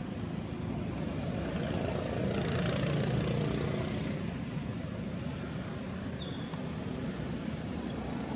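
Steady low rumble of a distant engine, swelling a little about three seconds in.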